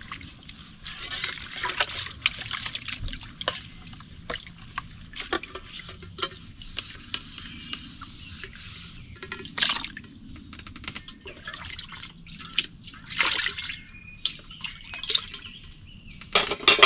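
Soapy water sloshing, splashing and dripping in a plastic collapsible wash tub as a black skillet is scrubbed with a dishcloth, in irregular swishes. A sharp clank near the end.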